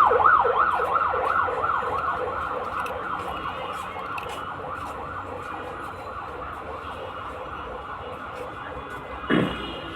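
A siren in a fast yelp, its pitch rising and falling about three times a second, loud at first and slowly fading. Near the end comes a single falling glide.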